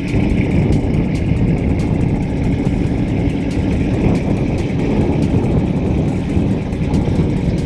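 A motor vehicle engine idling, a steady low rumble.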